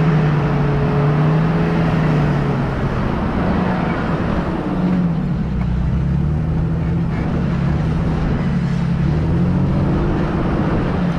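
Off-road vehicle engine working hard up a soft sand hill, its revs held steady and then rising and falling repeatedly as the driver works the throttle.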